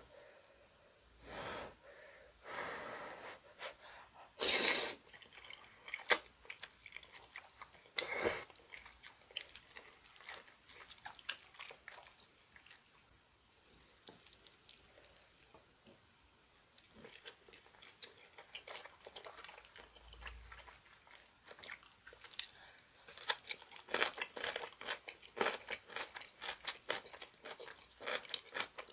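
Close-miked eating: glass noodles are slurped in several loud bursts over the first eight seconds or so. Wet chewing clicks and smacks follow, growing into dense, crunchy chewing over the last several seconds.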